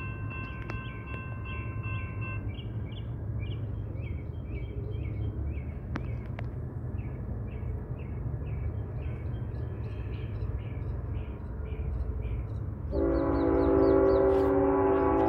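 Approaching Norfolk Southern freight train: a low rumble throughout, with a high sound repeating about twice a second. About 13 seconds in, the locomotive's air horn starts to blow, loud and held, several notes sounding together.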